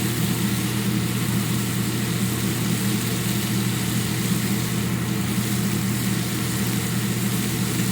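Chicken strips sizzling in a hot pan over a steady low machine hum.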